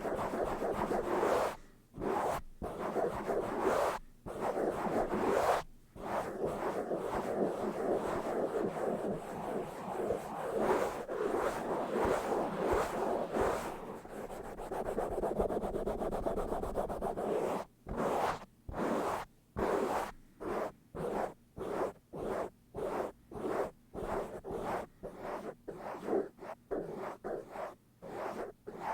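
Fast, rough scratching and rubbing directly on a microphone. It starts as continuous rubbing, then breaks into short separate strokes, about two a second, with brief silences between.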